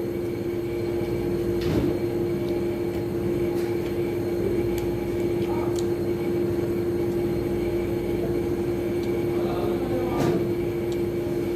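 A steady mechanical hum with one constant droning tone over even background noise, broken by a couple of brief light clicks.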